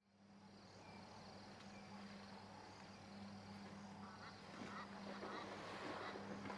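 Faint outdoor ambience: a steady low hum under faint high chirps about once a second. A rougher rustling noise builds over the last two seconds or so.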